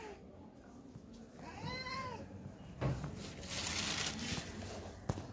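A domestic cat meows once, a short meow that rises and falls about two seconds in. It is followed by a stretch of rustling noise and a single light knock near the end.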